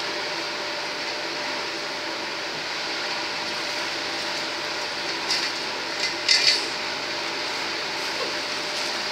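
A steady hiss with a few short scrapes and rustles a little past the middle, the loudest a brief double scrape: a cloth-wrapped live crab being pressed down and handled in a steel basin.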